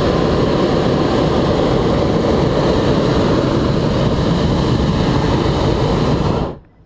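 Hot air balloon's propane burner firing in one long blast: a loud, steady roar that stops abruptly near the end.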